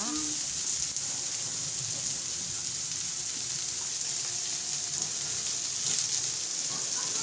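Tomatoes and peppers sizzling on a hot plancha griddle: a steady frying hiss with small crackles.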